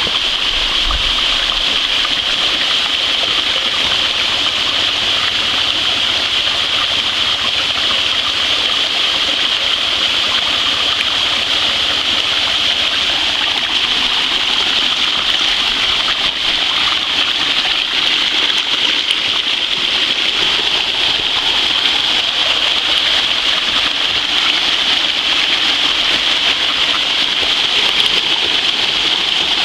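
Steady rush of a rain-swollen wet-weather creek spilling and splashing down small rock ledges and cascades toward a waterfall.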